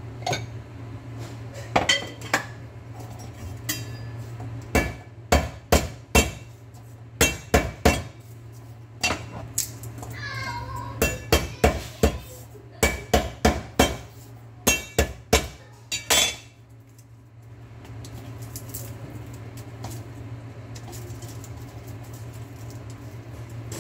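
Chinese cleaver striking garlic cloves on a wooden chopping board: sharp knocks in quick clusters of two to five, stopping about two-thirds of the way through, after which only faint handling is left.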